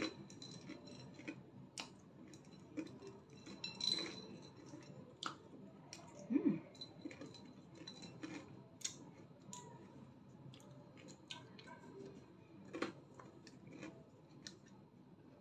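Scattered light clicks and taps of tableware being handled: a spoon and fingers on a china saucer and a plastic yogurt cup. A brief vocal sound about six and a half seconds in is the loudest moment.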